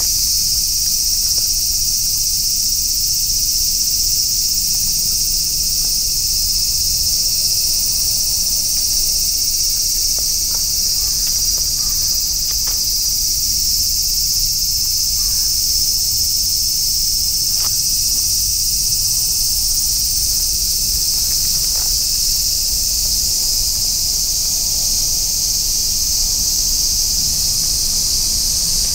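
A loud, steady chorus of insects, a high-pitched shrill drone that doesn't let up. A few faint clicks are heard near the middle.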